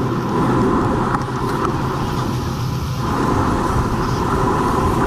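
Steady wind rush and tyre-on-road noise picked up by a camera on a road bike riding at race speed.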